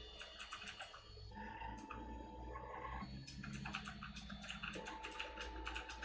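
Desktop FDM 3D printer's stepper motors running during a print: rapid, irregular ticking with steady whining tones that change pitch every second or two as the head changes moves.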